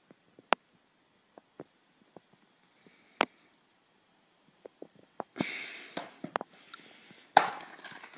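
Plastic DVD case being handled: a few sharp clicks and taps, then rustling and scraping from about five seconds in, with a loud snap near the end as the case is opened.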